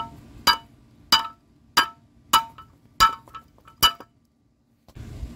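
A sledgehammer striking a steel semi-truck brake shoe about seven times, roughly one blow every half-second or so. Each blow is a sharp metallic clang with a short ring, driving a fitted piece into place on the new shoe.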